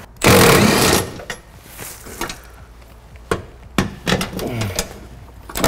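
Small cordless impact wrench hammering for about a second as it breaks loose the 19 mm bolt of an old caravan corner steady, followed by a few short metallic clicks.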